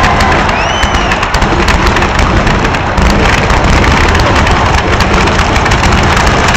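Fireworks finale: a loud, dense, unbroken barrage of bangs and crackling shells. A brief whistle rises and falls about a second in.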